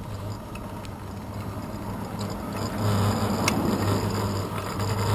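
Wind and road rumble picked up by a handlebar-mounted action camera on a moving bicycle, with a few sharp clicks and rattles from the mount. It gets louder about three seconds in.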